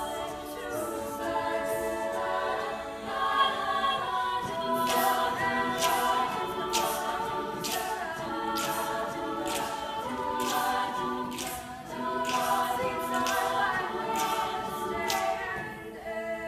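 Several voices singing a cappella in sustained harmony. From about five seconds in, sharp clicks keep a steady beat, a little under two a second.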